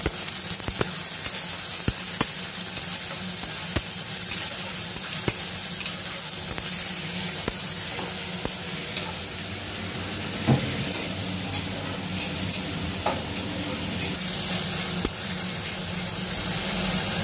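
Onions and tomato pieces sizzling in hot oil in a metal kadai while a metal spatula stirs them, clicking and scraping against the pan at irregular moments, with one louder knock about ten seconds in.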